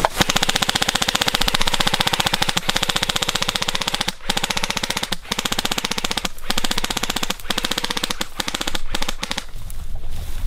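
Airsoft gun firing on full-auto in long bursts: a fast, even rattle of many shots a second, broken by short pauses.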